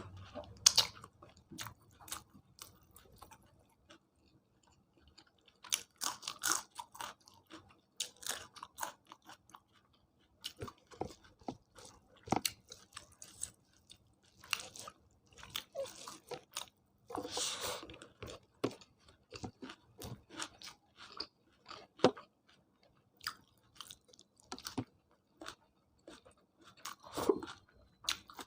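Close-miked eating: a person chewing and biting food, with irregular wet clicks and crispy crunches, one louder, longer crunch about two-thirds of the way through.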